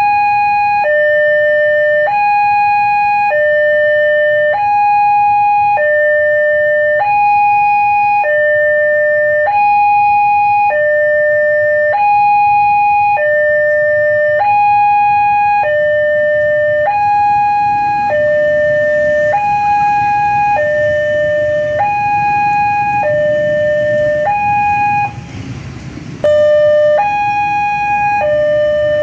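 Railway level-crossing warning siren: an electronic two-tone alarm swapping steadily between a higher and a lower tone, about one cycle every two seconds. It cuts out for about a second near the end, while a low rumble builds beneath it in the second half.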